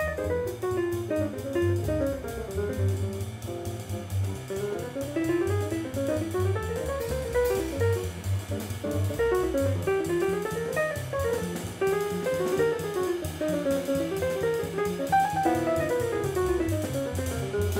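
Mid-1960s acoustic jazz quintet playing up-tempo. Fast melodic runs rise and fall over a walking double bass and a drum kit with steady ride cymbal.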